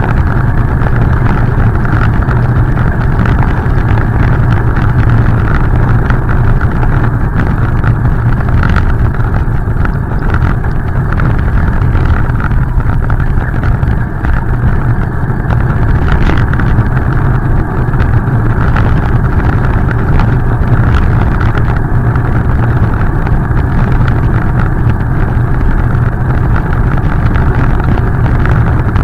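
Steady, muffled rush of wind buffeting a bike-mounted action camera's microphone while riding, mixed with tyres running on wet pavement.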